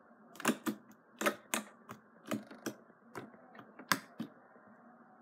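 Slime clicking and popping as fingers press and poke into it: about a dozen sharp, irregular clicks.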